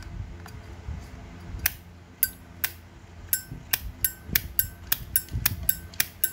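Brushed-chrome 1992 Zippo lighter's hinged lid flicked open and snapped shut over and over: a run of sharp metallic clinks, each with a brief ring, about two or three a second from about a second and a half in.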